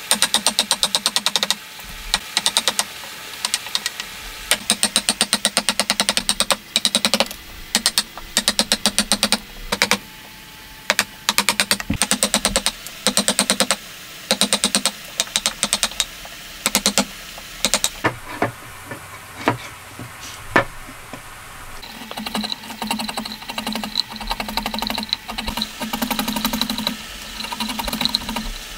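A wood chisel driven into a hardwood block by quick light hammer taps, several a second in bursts, chopping out a joint. The blows thin to a few single knocks, and near the end the chisel is pushed by hand, scraping and paring shavings from the wood.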